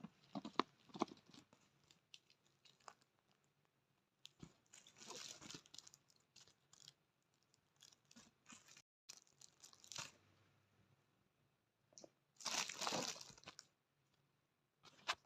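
Faint handling of plastic packaging being torn open: scattered crinkles and clicks, with louder rustling bursts about five seconds in and again near the end.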